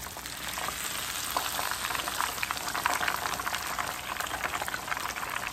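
Battered tilapia fillets shallow-frying in hot oil in a pan, with a dense, steady crackling sizzle.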